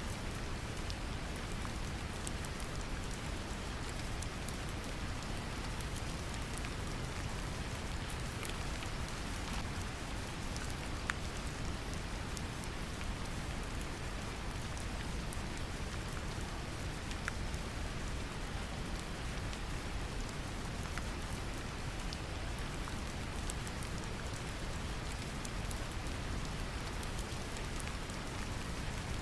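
Steady brown noise, deep and even, mixed with gentle rain: a constant patter of fine drops with scattered single drop ticks.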